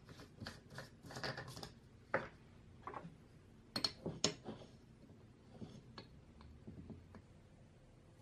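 Screw cap being twisted off a glass jar of instant coffee, a quick run of short rasping clicks, followed by a few sharper clicks and fainter taps as the jar and cap are handled.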